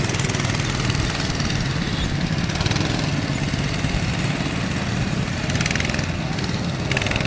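Small go-kart engines running steadily at an even pitch, a kids' kart being driven with the accelerator held down.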